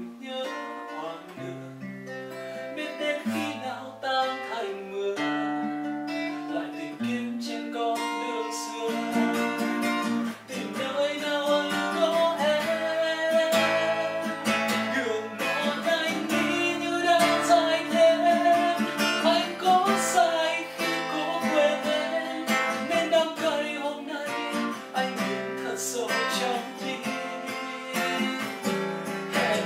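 Acoustic guitar played in chords, with a man's voice singing over it from about ten seconds in.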